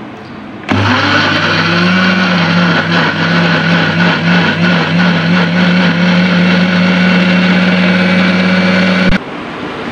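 Electric blender switched on about a second in, its motor running steadily with a low hum as it purées boiled tomatoes and onions with a little water, then switched off abruptly near the end.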